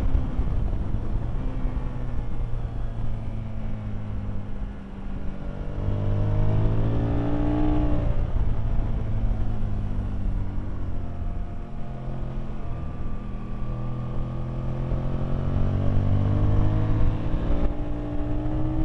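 Aprilia Tuono V-twin engine heard on board at speed, revving up through the gears, easing off, then pulling hard again, with wind rushing past.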